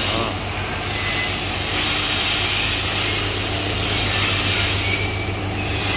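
Steady mechanical drone with a rushing hiss over a constant low hum, the hiss swelling and easing a little.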